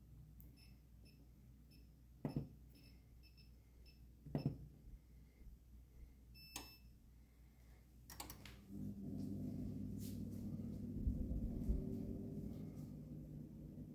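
An electronic kitchen appliance being set and started: a quick run of short beeps from its control panel with two clunks among them, a single longer beep, then a click or two and the appliance running with a steady hum.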